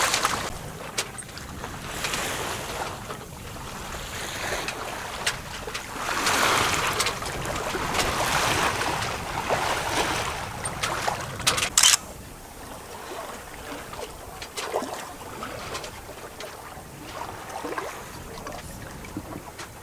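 Water rushing and swishing along the hull of a sailing yacht under sail, with wind on the microphone. The rush swells louder and fades in waves. There is a brief sharp noise about twelve seconds in.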